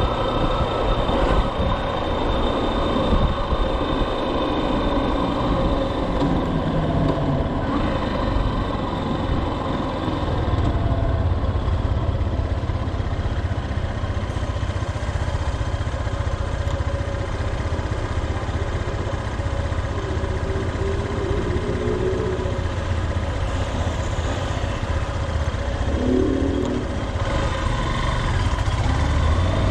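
Motorcycle engine running while the bike is ridden through city traffic: a steady mix of engine, road and traffic noise. The engine pitch rises near the end as it accelerates.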